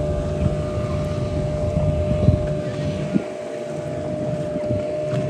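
Motorboat engine running steadily at speed, a constant engine note over a low rumble, with wind buffeting the microphone in irregular low thumps.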